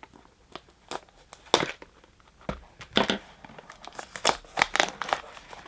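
Foil Pokémon card booster pack wrapper crinkling and being torn open, in short irregular crackles with a few sharper rips.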